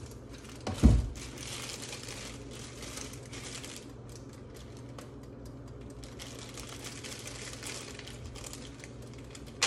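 Plastic seasoning-packet bag crinkling and rustling as it is handled and opened, with a single thump about a second in.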